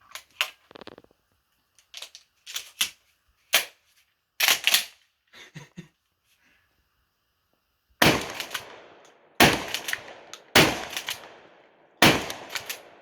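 A few seconds of light clicks and knocks from handling, then a 12-gauge pump shotgun fired four times in quick succession, about a second and a half apart, each shot loud with a ringing echo.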